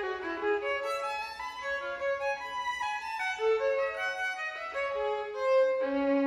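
Solo violin playing an unaccompanied melodic passage, its notes changing several times a second and dipping to a low note near the end.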